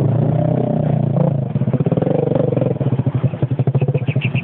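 Trail motorcycle engine running at low revs, its firing pulses turning into an uneven chugging about halfway through. A few short high squeaks come near the end.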